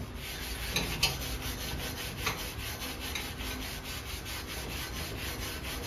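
Hand wire brush scrubbing a stick weld on a steel test plate, in rapid, even scratchy strokes, cleaning slag off the bead and sidewalls.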